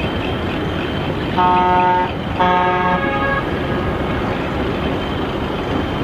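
Heavy dump truck driving with a steady engine rumble, its horn honking twice: a short toot about a second and a half in, then a longer one about a second later.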